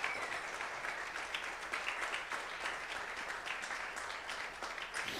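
Crowd of guests applauding, many hands clapping together, easing off slightly toward the end.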